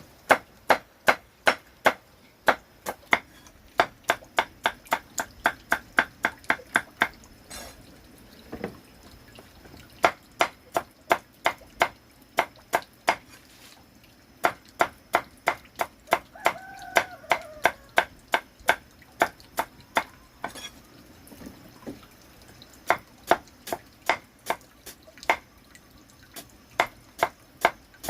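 Rhythmic chopping with a knife on a cutting board, about three sharp strokes a second, in runs broken by short pauses.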